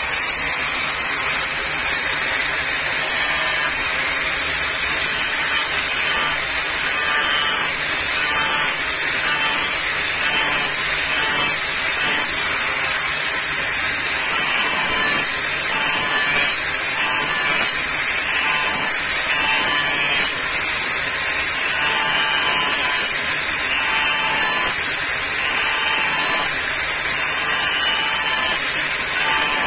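Electric hand angle grinder running steadily with its disc ground along the edge of a steel brush-cutter blade, sharpening the blunt cutting edge: a constant high motor whine over a grinding rasp.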